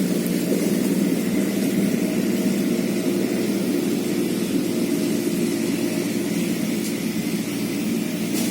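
A steady machine drone with a hiss over it, even throughout.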